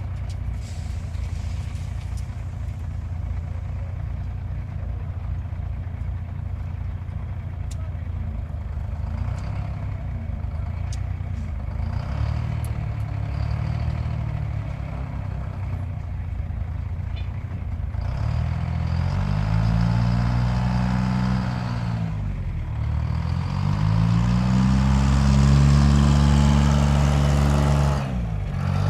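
Car engine idling in an auto repair shop, revved up and let back down twice in the latter part, with a shorter rev at the very end. A few sharp metallic clicks of tools sound in the first half.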